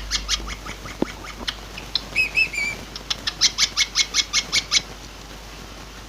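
Pet parrot chirping: scattered short chirps, then a quick run of about ten sharp, evenly spaced chirps about three seconds in.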